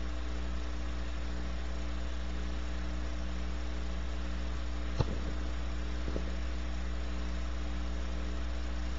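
Steady electrical mains hum with an even hiss underneath, unchanging throughout, broken only by a single sharp click about five seconds in.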